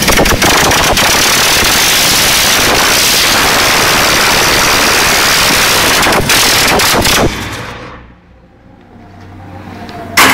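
A 1945 Willys CJ-2 jeep's engine running loud and ragged, worked by hand at the carburettor. About seven seconds in it drops suddenly to a much quieter sound, and a single sharp crack comes near the end.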